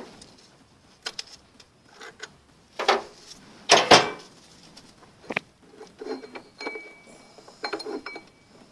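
Clinks and clanks of steel lathe change gears, nut and spanner being handled as the large 127/125-tooth compound change gear is taken off its stud to be turned round. The loudest clatter comes about four seconds in, and a short metallic ring follows later.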